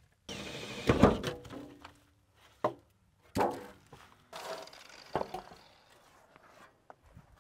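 A handful of irregular metal thunks and clatters, the loudest about a second in, as a sheet-metal heat shield with its rivets drilled out is worked loose and pulled off a truck cab's floor pan.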